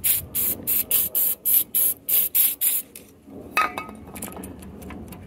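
Aerosol can of carburetor cleaner (Berryman B-12 Chemtool) sprayed in quick short bursts, about four a second, onto a record changer mechanism to loosen old grease. The spraying stops about three seconds in, and a sharp metallic clink follows.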